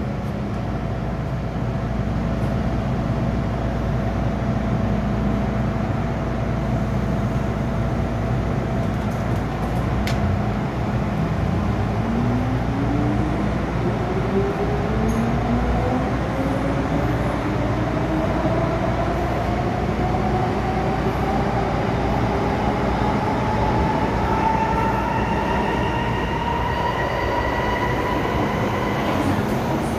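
MTR M-Train electric multiple unit pulling away, heard from inside the carriage: a steady rumble and hum. About a third of the way in, the traction motors' whine starts, climbing steadily in pitch as the train accelerates, and higher whines climb alongside it later.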